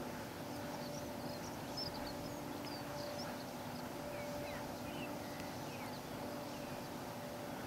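Faint, scattered bird chirps and short whistled glides from distant songbirds over a steady low hum and hiss.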